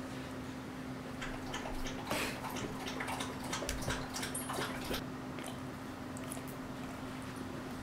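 Boxer dog lapping water from its bowl: a run of quick, wet laps from about a second in to about five seconds in, over a faint steady hum.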